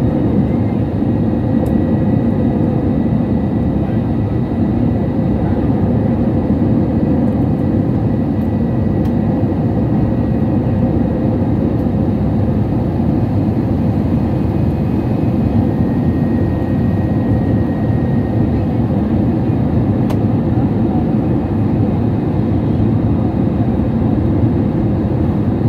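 Steady, loud drone of a jet airliner's turbofan engines and rushing air, heard inside the passenger cabin during the climb after takeoff.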